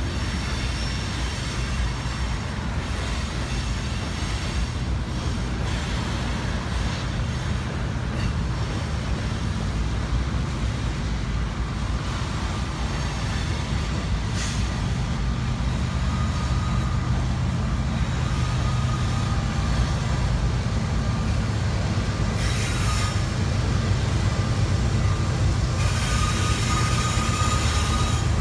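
A CSX unit grain train of covered hopper cars rolling over a steel elevated trestle: a steady low rumble of wheels on rail, with a thin high wheel squeal joining about halfway through. Toward the end the train's diesel locomotives draw near and the sound grows louder.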